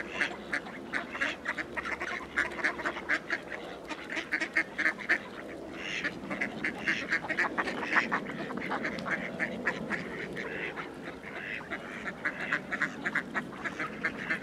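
Mallards quacking: many short quacks in quick, overlapping runs of several a second, with no let-up.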